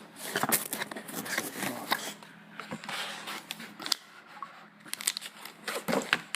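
Packaging being handled: sponge padding and a wrapped package are moved and pulled out of a box, with irregular crinkling and rustling and many short sharp clicks.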